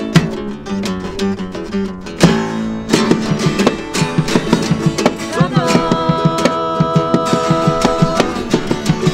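Acoustic band playing: strummed twelve-string acoustic guitar over an acoustic bass guitar. From about halfway a voice holds one long sung note.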